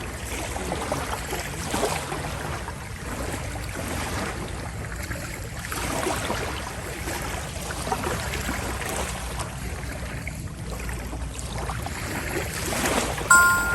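Running water, a steady rushing that swells and fades. Near the end a bright chime strikes once and rings on.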